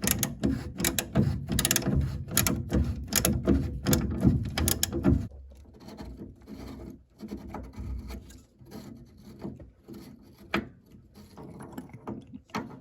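Rapid clicking, knocking and rubbing of small boiler parts being handled and fitted, over a low rumble, for about five seconds; then quieter, with two isolated clicks near the end.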